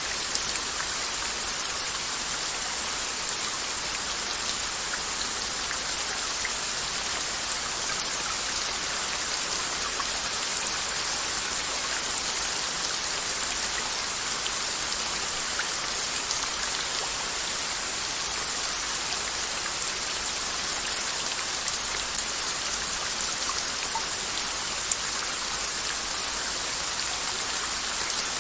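Steady rain falling on a surface, an even hiss with scattered individual drop ticks.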